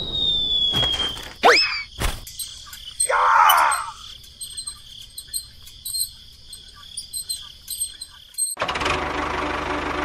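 Cartoon sound effects: a falling whistle, a quick swoop and a click, and a short burst. Then a few seconds of cricket chirping, the stock 'awkward silence' effect. Near the end a dense, steady buzzing sound cuts in.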